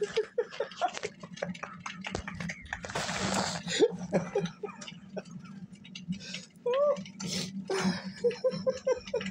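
Handling noise: clicks, taps and rustling as a handheld phone is moved about and tarot cards are handled, with a louder rustle about three seconds in, over a low steady hum.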